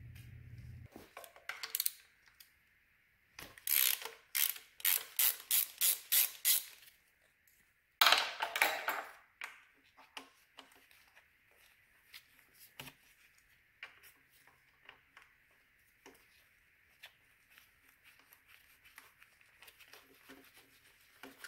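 Hand ratchet clicking through about a dozen quick back-strokes while bolts are run down, then a louder burst of metal clatter, then faint scattered ticks of tools being handled.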